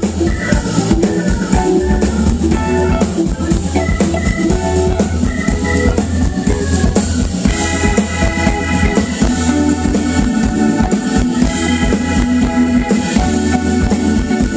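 Live rock band playing: an electric guitar carrying the melody over a drum kit with a steady beat and a constant bass line.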